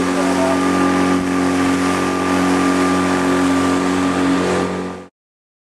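Single Tohatsu 9.8 hp outboard motor running steadily with the boat under way, mixed with the rush of wind and water. It cuts off suddenly about five seconds in.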